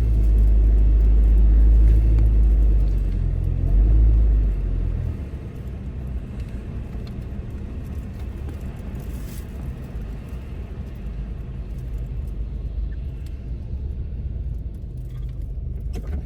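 A car's engine and road rumble heard from inside the cabin while driving. It is louder for about the first five seconds, then drops to a quieter, steady rumble.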